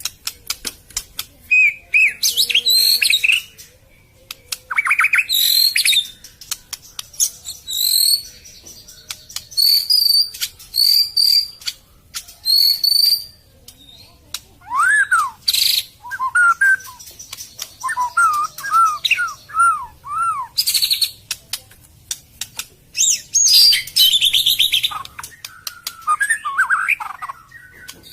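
White-rumped shama (murai batu) singing: a varied song of short phrases with clear slurred whistles, rapid rattling trills and clicks, broken by brief pauses.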